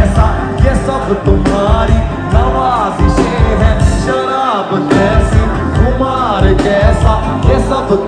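Background music: a song with singing over a steady drum beat.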